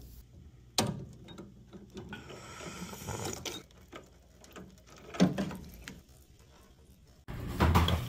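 Scattered metal clicks, taps and scraping of hand-tool work as the copper pipe is cut to take out the zone valve, with one sharper click about a second in. A louder steady hum sets in abruptly near the end.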